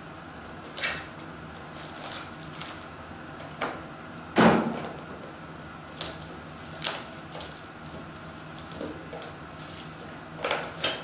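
Handling of foil trading-card packs and their cardboard hobby box: a series of short crinkles and soft knocks as packs are set down in a stack on a mat, the loudest about four and a half seconds in.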